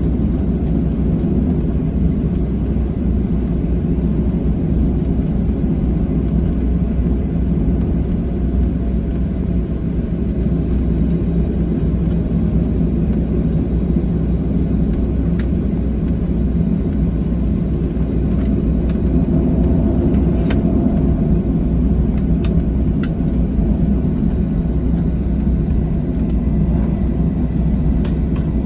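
Steady low cabin rumble of a Boeing 737-700 heard from inside the passenger cabin: its CFM56 jet engines and airframe run at an even, unchanging level, with a few faint ticks.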